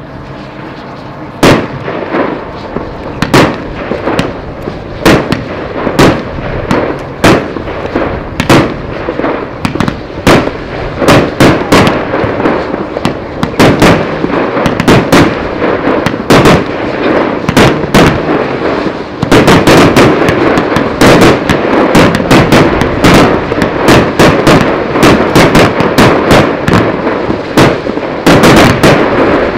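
Jorge Exclusive Collection 50-shot firework cake (JW80) firing: a run of sharp shots and bursts over a constant crackle, about one shot a second at first. About two-thirds of the way through the shots come faster and the whole barrage gets louder.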